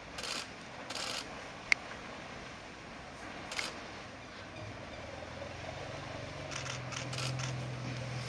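A few short clicks and bursts of noise. The sharpest is a single click about two seconds in, and a cluster of bursts comes near the end. Under them runs a low steady hum that grows louder in the second half.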